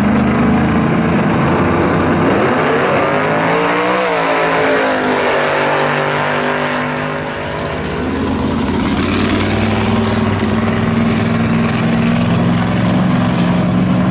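Drag-race car engine running loud and steady, with the pitch climbing and falling back as it revs about three to five seconds in, then settling to a steady run again.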